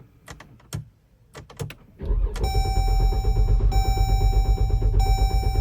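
A few clicks, then about two seconds in the 2015 Dodge Durango's 3.6-litre V6 is cranked over on the starter, a steady pulsing low churn with a steady tone over it that breaks briefly every second or so. The engine does not catch: there is no fuel delivery, which is put down to a bad fuel pump.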